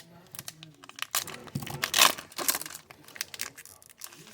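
Foil trading-card pack wrapper crinkling and tearing in several short bursts as hockey card packs are handled.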